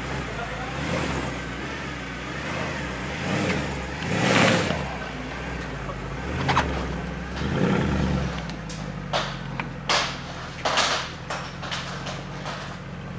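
Mercedes C63 AMG Black Series' 6.2-litre V8 idling steadily, revved twice, about four and eight seconds in. A run of sharp short clicks follows over the last few seconds.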